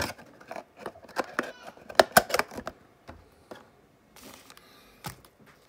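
A trading-card blaster box and its packs being handled and opened: a quick run of clicks and taps, the loudest about two seconds in, then a short rustle of packaging and one more click.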